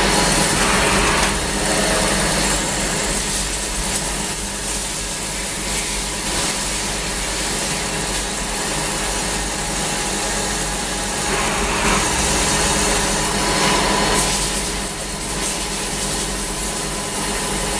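Tschudin HTG 22 CNC cylindrical grinding machine running: a steady mechanical hum and hiss with a few faint constant whining tones.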